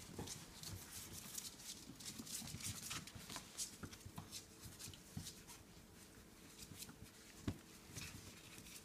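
Coton de Tulear puppies scuffling and playing on a tile floor: faint, scattered claw clicks and patters, with one sharper knock about seven and a half seconds in.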